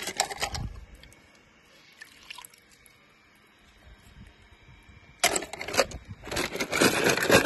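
Toy cars clattering against each other in a plastic bucket as a hand rummages through them: a short rattle at the start, a faint one about two seconds in, then a louder, longer bout of clattering from about five seconds in.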